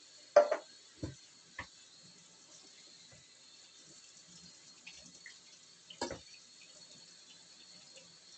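A few short clattering knocks of dishes being handled at a kitchen sink during clean-up. The loudest comes about half a second in, two lighter ones follow within the next second, and another comes about six seconds in.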